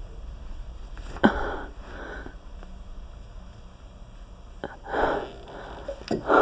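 A person with flu sniffling: three noisy sniffs, one about a second in, one about five seconds in, and a quick double sniff near the end.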